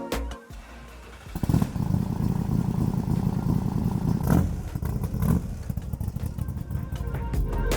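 Cobra's V8 engine starting about a second and a half in, then idling with a steady low, rapid rumble.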